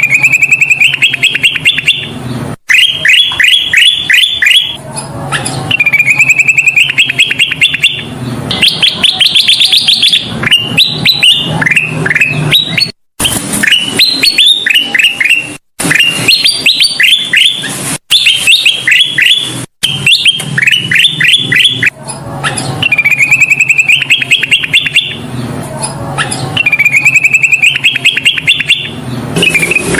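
Kutilang emas singing continuously and loudly: phrases of rapid repeated chirping notes, some rising in pitch, each lasting a second or two. The phrases are broken by short, sudden silent gaps.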